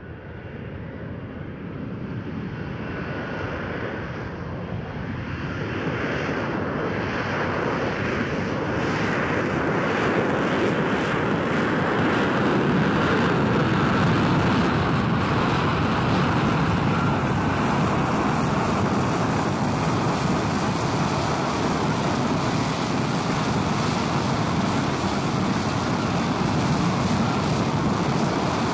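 RAF F-35B Lightning's Pratt & Whitney F135 jet engine and shaft-driven lift fan in hovering (STOVL) mode, very noisy. It grows louder over the first ten seconds, then holds as a steady jet roar with a thin whine running over it.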